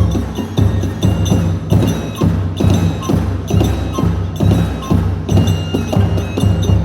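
Kagura hayashi accompaniment for a fight scene: taiko drums beaten in a fast, driving rhythm with small hand cymbals, under a high bamboo transverse flute (fue) playing a melody of held, stepping notes.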